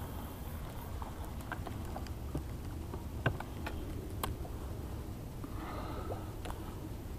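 Light clicks and taps of handling noise aboard a fishing boat, the sharpest about three seconds in, over a low steady rumble.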